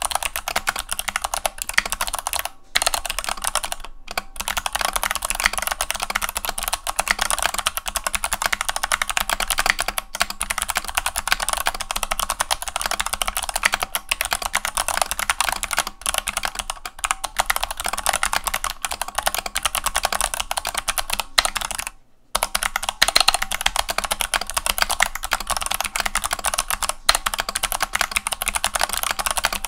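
Fast, continuous typing on a GMMK mechanical keyboard with clicky Kailh BOX Navy switches and Vortex PBT keycaps, the keyboard resting on a towel. There are a few brief pauses, the longest about 22 seconds in.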